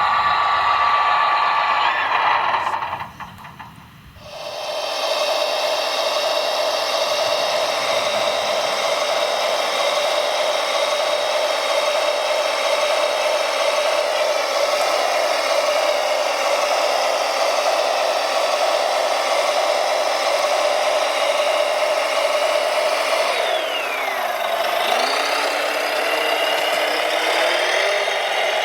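Electric motor and hydraulic drive of a large radio-controlled construction machine whining steadily. The sound drops out briefly a few seconds in, and near the end the pitch sags under load and climbs back.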